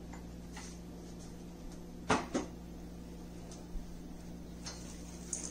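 Quiet room tone with a low steady hum, broken by two short sharp knocks a fraction of a second apart about two seconds in and a few faint ticks near the end.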